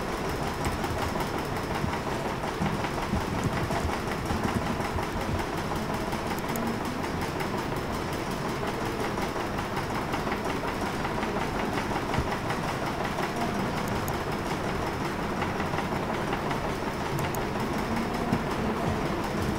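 Steady, unbroken rumbling noise with a faint high whine, like machinery or traffic, and a few faint clicks.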